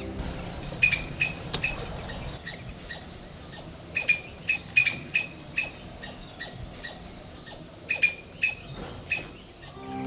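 Insects, crickets or similar, keep up a steady high-pitched drone, part of which drops out about seven seconds in. Over it come three bursts of short, sharp, repeated chirping calls from an animal, which are the loudest sounds.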